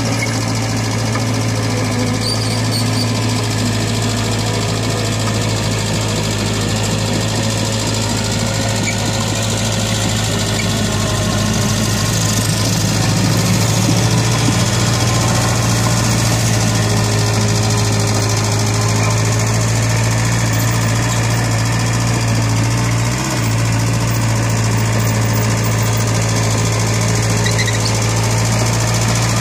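HANIX H45A mini excavator's diesel engine running steadily under working load while the machine digs and spreads wet mud.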